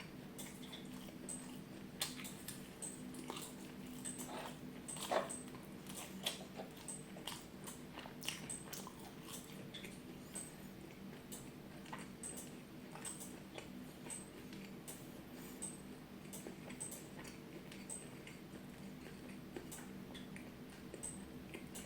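Close-miked chewing and biting: irregular wet clicks and crackles of food being eaten, over a steady low hum.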